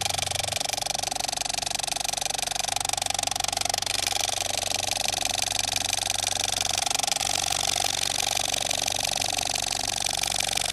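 Film projector running: a steady, rapid mechanical rattle of the film-advance mechanism.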